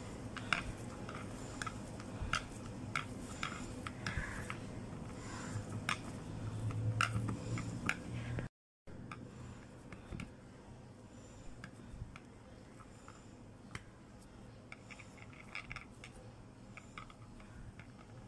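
Fingers pressing and patting minced chicken into a patty on a banana leaf: scattered soft clicks and wet taps over a low hum, cutting out briefly about halfway through, with fainter ticks afterwards.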